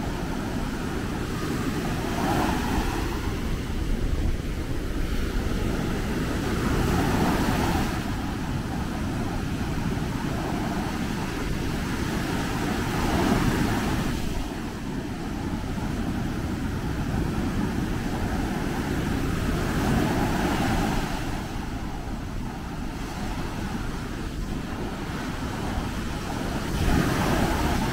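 Sea surf breaking on a sandy beach: a steady wash of noise with a low rumble, swelling every several seconds as each wave breaks and runs up the sand.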